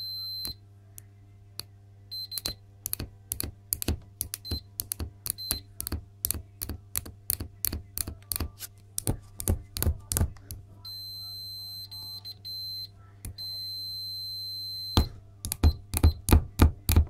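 Keysight U3401A bench multimeter's continuity beeper giving a high steady beep as the test probe tips are tapped together rapidly. Many taps give only a click of the metal tips with a short beep or none, and two longer steady beeps sound about eleven and thirteen and a half seconds in. The beeper lags behind fast contacts: the continuity test function isn't that fast.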